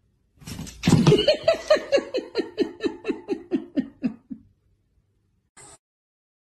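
A person laughing: a rapid run of 'ha's, about four a second, each dropping in pitch, trailing off after about four seconds.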